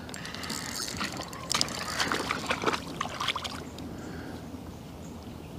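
Water splashing irregularly as a hooked fish is played in at the surface of the river, busiest in the first few seconds and then easing off.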